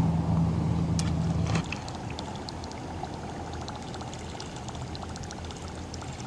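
A steady low motor hum that cuts off about a second and a half in, followed by water lapping and trickling with faint small ticks.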